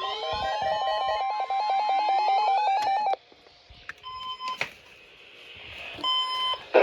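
NOAA Weather Radio warning alarm tone, a steady 1050 Hz tone, layered with repeating rising siren-like sweeps and a fast two-note warble. It cuts off about three seconds in. Faint radio hiss follows, broken by a couple of clicks and short electronic beeps.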